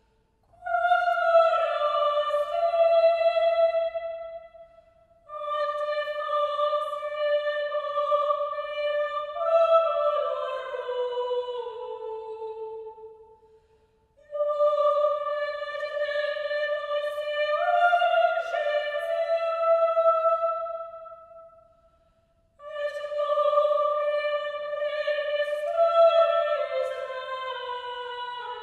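Unaccompanied high-voiced singing of a single melody line, chant-like, in four phrases of several seconds each with short silences between.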